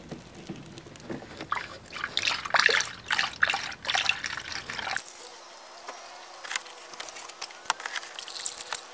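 Premixed antifreeze coolant pouring from a plastic jug through a funnel into a plastic coolant reservoir, trickling and splashing unevenly.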